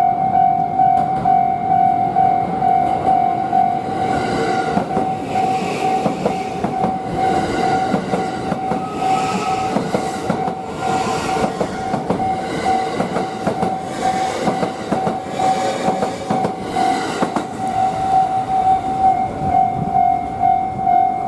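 Japanese level crossing alarm ringing a steady, repeated high tone throughout while a train passes over the crossing. The train is loudest in the middle, with its wheels clacking over the rail joints.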